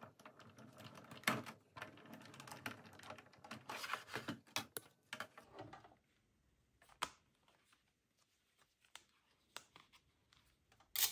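Sizzix Big Shot manual die-cutting machine: a busy run of light clicks and rattles as the handle is cranked and the plastic cutting plates are handled, then a few scattered single clicks as the cut paper is taken out.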